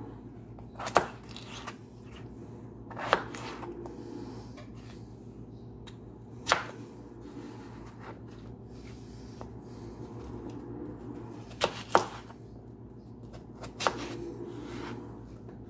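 Chef's knife chopping peeled russet potatoes into chunks on a cutting board: about six sharp knocks of the blade on the board, a few seconds apart, over a steady low hum.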